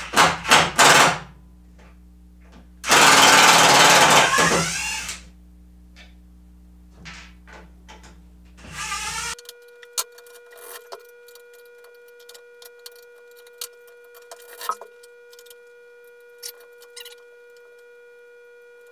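A power tool run in short loud bursts, the longest about two seconds. It stops suddenly just before halfway, and scattered light clicks and knocks follow.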